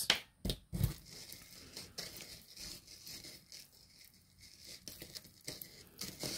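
Small metal jewelry being handled on a tabletop: chains and charms clinking and rustling. A few sharper clicks come in the first second and again near the end, with soft rustling between.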